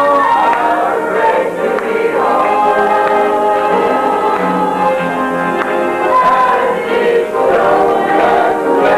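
A choir singing a Christian song, with long held notes sung by several voices together.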